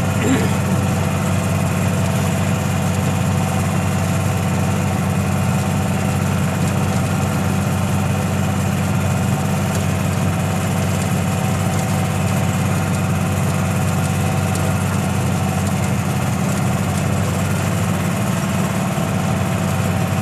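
Steady machine drone with a strong low hum and several steady tones above it, unchanging throughout.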